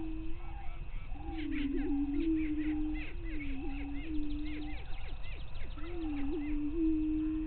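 Male greater prairie chickens booming on the lek: low, hollow moaning calls, each about two seconds long with a dip and a jump in pitch, one after another with a short break just before five seconds in. Quick higher-pitched calls run over the top during the first half.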